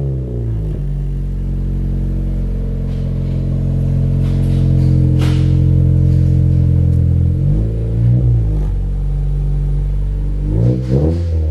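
2017 Honda Civic Si's 1.5-litre turbocharged four-cylinder running through a newly fitted MAPerformance cat-back exhaust shortly after a cold start. It settles from a rev into a steady idle, gets one quick rev blip about eight seconds in, and more short blips near the end.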